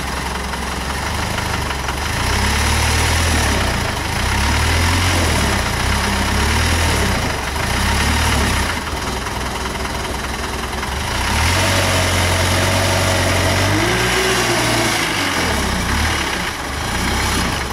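Land Rover Defender 90's engine revving in repeated bursts as the truck strains to climb over a tree trunk, its pitch rising and falling with each blip of the throttle. Near the end comes one longer held rev of a couple of seconds.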